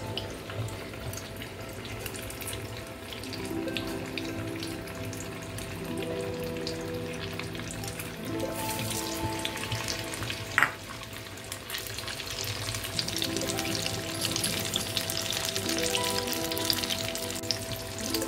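Crumb-coated paneer pieces frying in hot oil in a kadai, a dense sizzle that comes in about halfway through and keeps up to the end, with one sharp knock a couple of seconds after it starts. Soft background music plays throughout.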